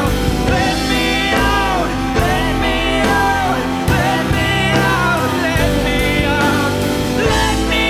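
Loud live band music with a man and a woman singing.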